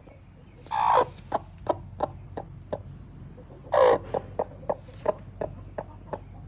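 Broody hen calling: two drawn-out squawks, about a second in and near the four-second mark, each followed by a run of short, sharp clucks, roughly three a second.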